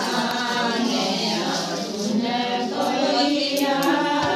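A group of women singing a traditional wedding folk song together, on long drawn-out notes.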